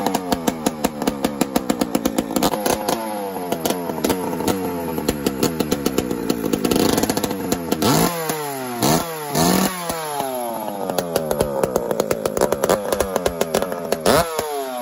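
Dolmar PS-9000 two-stroke chainsaw with a welded-up modified muffler, revved in repeated throttle blips: the engine speed climbs, then glides back down toward idle, again and again.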